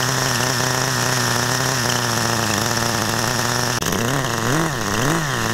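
Small two-stroke glow engine of a 1/10-scale nitro RC touring car, just started and being run in for the first time. It runs with a steady, even buzz, then from about four seconds in its speed rises and falls about twice a second.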